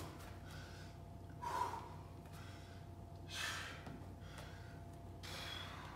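A man breathing hard during Cossack squats, a sharp breath about every two seconds, over a faint steady hum.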